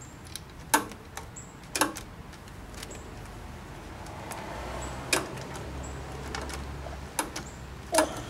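A few sharp metallic clicks and clinks from a 10 mm wrench being fitted and turned on a bolt on a diesel generator engine.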